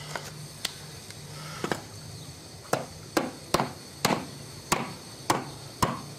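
Metal casting mold knocked against a concrete floor, about nine sharp knocks coming faster toward the end, some with a brief metallic ring, to free a freshly cast lead diving weight. The lead has not yet cooled enough to drop out.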